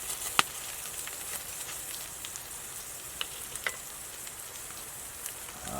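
Food frying in a pan, a steady sizzle with scattered pops and crackles, one sharp pop about half a second in.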